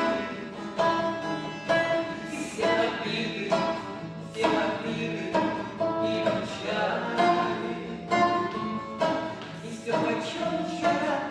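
A song performed live: singing over instrumental accompaniment, with chords struck about once a second.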